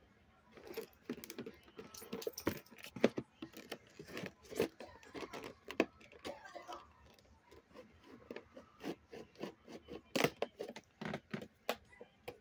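Irregular sharp clicks, jingles and scrapes of a red Swiss Army pocketknife on a metal carabiner being handled while its blade cuts open a cardboard-and-plastic toy package, with crinkles of the packaging.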